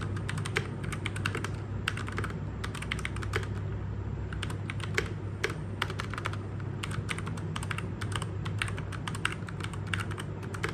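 Typing on an Xtrike Me GK-803 mechanical keyboard with linear red switches: a quick, uneven run of keystroke clicks, over a steady low hum.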